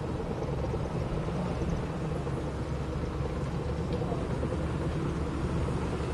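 Diesel engine of a small crawler bulldozer running steadily under load as it pushes dirt, a continuous low drone.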